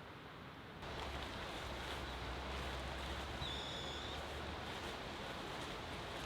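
Steady outdoor ambient rushing noise that steps up a little about a second in, with a short high whistle about three and a half seconds in.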